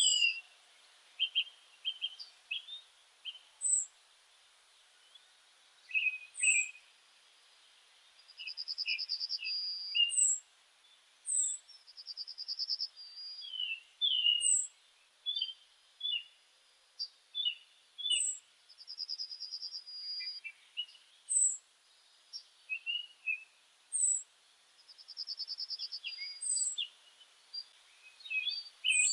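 Songbirds singing and calling: short high whistled notes recurring every few seconds, a buzzy trill of about a second four times, and scattered lower chirps in between.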